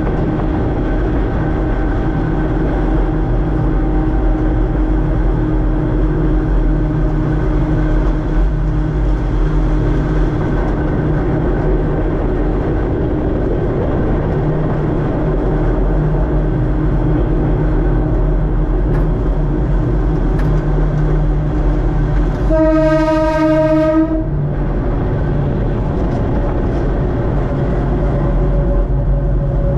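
Kurobe Gorge Railway trolley train running along the line, a steady rumble with a constant motor hum. About twenty-two seconds in, the train's horn sounds one blast of about a second and a half.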